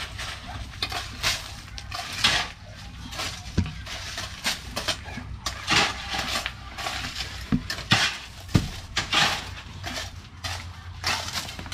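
Irregular clinks and scrapes of metal tools at work, a dozen or so sharp knocks at uneven intervals.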